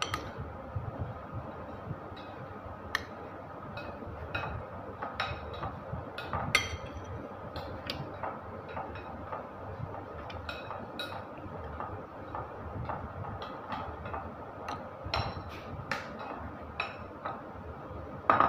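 Metal spoon clinking and scraping against a white bowl while stuffing ground chicken filling into green chillies: irregular light taps and clinks, with one louder knock near the end.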